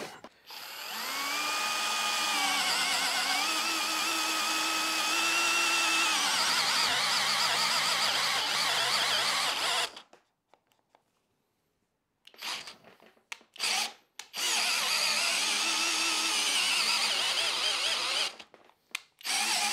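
Hilti SFE 2-A12 12 V cordless drill driver boring into a timber beam with a 22 mm auger bit. The motor whine rises as it spins up and dips as the bit bites, running about ten seconds before stopping. After a short pause come a few brief trigger bursts, then a second long run that slows under load. The drill is labouring at this bit size and bogging down because it is not given time to come up to speed.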